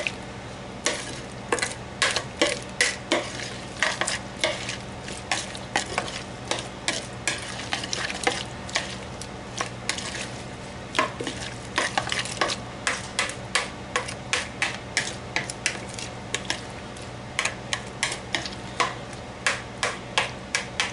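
A hand tossing sliced cucumbers and onions coated in dressing in a bowl: a run of short wet slaps and squishes, about two a second, with brief pauses.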